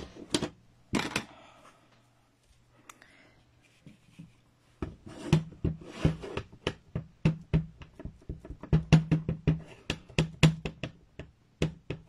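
A clear acrylic stamp block tapped again and again onto a Memento ink pad to ink the stamp: short light knocks, about four a second, starting about five seconds in. A couple of single clicks come near the start.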